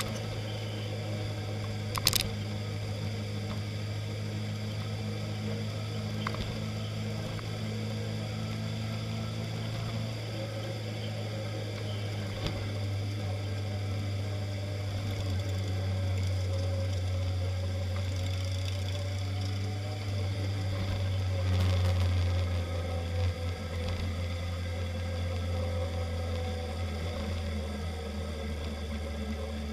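Motorcycle engine running steadily at cruising speed, with wind noise, as heard from a camera on the bike's handlebars. A sharp click comes about two seconds in, and the engine grows louder for a moment a little past two-thirds of the way through.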